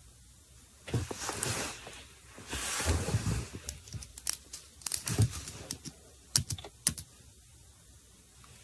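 Handling noise on a smartphone held close to its own microphone: two spells of rubbing and brushing, then a run of sharp taps and clicks from fingers on the phone.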